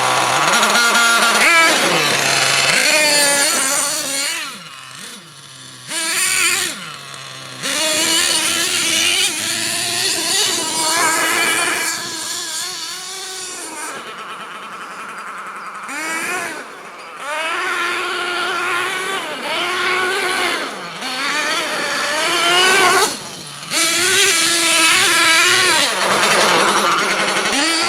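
MTA4 Sledgehammer S50 radio-controlled truck's motor revving up and down repeatedly as it is driven, fading a little at times.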